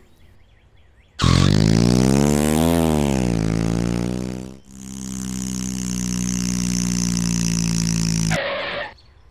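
Engine sound effect for a cartoon monster truck. It revs up and back down, then runs steadily with its pitch slowly climbing, and cuts off suddenly near the end, followed by a short rushing noise.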